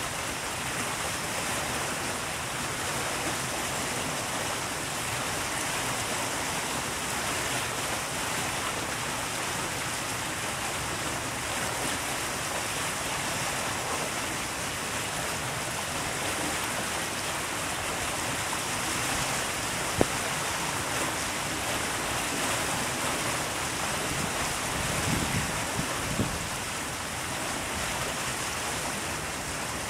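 Floodwater rushing past and swirling around a concrete bridge pier, a steady hiss of moving water. A single sharp click comes about two-thirds of the way through, and a few low rumbles follow a few seconds later.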